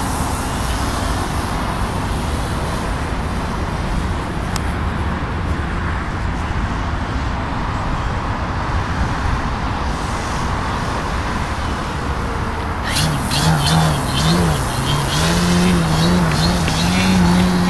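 Radio-controlled Edge 540 aerobatic model plane's engine and propeller, distant at first, then close from about thirteen seconds in, its engine note rising and falling as the throttle changes through the manoeuvres.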